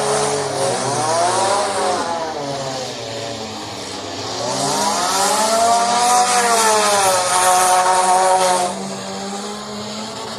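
Demolition derby car engines revving. There is one short rev about a second in, then a longer, louder rev that climbs, holds and drops off near the end, over steady idling.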